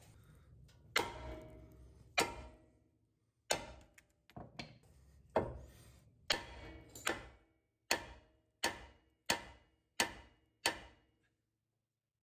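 Hammer blows on steel front-suspension parts, about a dozen strikes, each ringing briefly, falling into a steady beat of roughly one every 0.7 s before stopping near the end. The hammering is an attempt to knock a stuck lower ball joint free so the knuckle will drop.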